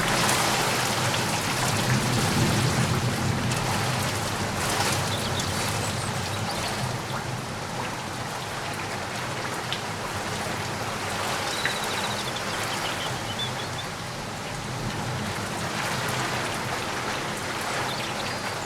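Steady rain falling and pattering on surfaces, a little heavier in the first few seconds.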